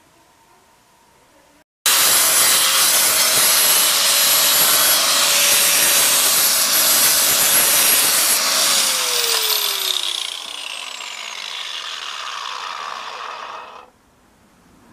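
Angle grinder with a sanding disc grinding across a pine board to roughen its surface, giving new wood a rough, aged look. It starts abruptly about two seconds in, runs loud and steady, and is then switched off: its whine falls as the disc spins down before the sound cuts off near the end.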